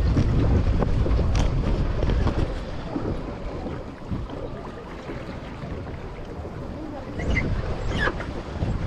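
Wind buffeting the microphone on a small boat at sea, over the wash of the water around it; the buffeting is strongest in the first few seconds, then eases. A few knocks near the end.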